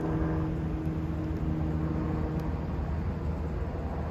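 Steady low rumble of city traffic, with a low droning hum over it that fades out about two and a half seconds in.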